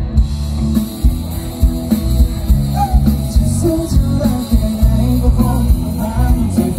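Live rock band playing through stage loudspeakers: drums keeping a steady beat under electric guitar and bass, with a singer.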